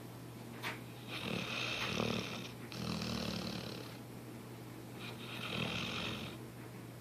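A dog snoring in its sleep: three long, hissing snoring breaths, each lasting a second or more.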